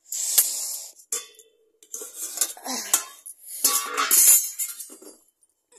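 Metal pot lid and a metal ladle clanking and scraping against a pot of cooking rice, with several sharp clinks.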